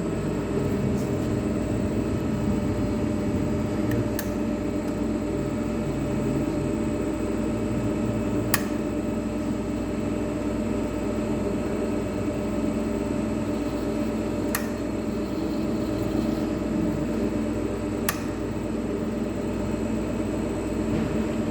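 CNC lathe running with a steady mechanical hum, with four sharp clicks spread through it.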